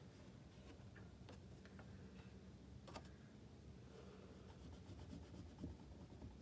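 Near silence: low room hum with a few faint ticks and soft rubs from oil pastel and fingers working on paper.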